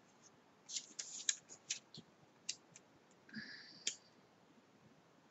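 Paper tags and small craft supplies being rummaged through by hand: a run of light clicks and short rustles over the first three seconds, then a brief rubbing sound ending in a click near the four-second mark.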